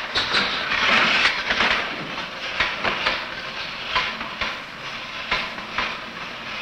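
A mechanical fright toy built to scare infant monkeys, running: a loud rattling clatter of irregular clicks over a hiss, loudest about a second in.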